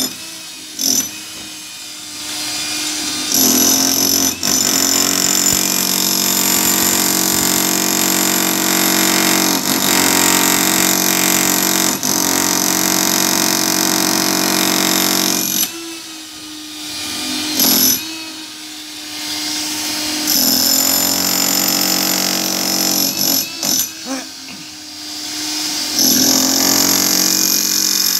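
Corded electric demolition hammer chiselling into a concrete wall. It runs in one long stretch of about twelve seconds, then stops and starts again in shorter runs with brief pauses between.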